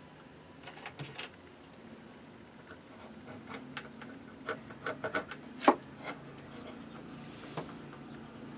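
Pencil scratching on a paper template laid on a wooden board, with handling taps and clicks on the wood; one sharp click stands out a little past the middle.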